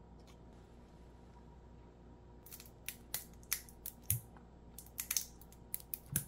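Bottle of Buldak hot sauce sputtering and crackling as the thick sauce is squeezed out onto rice: a run of sharp, irregular clicks starting a couple of seconds in, with two soft low thuds.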